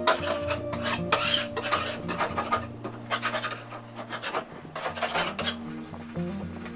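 Metal putty knife scraping old paint drips off a painted drywall surface in short, irregular rasping strokes.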